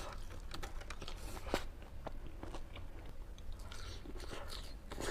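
Close-up chewing and crunching of food, with irregular wet clicks and smacks.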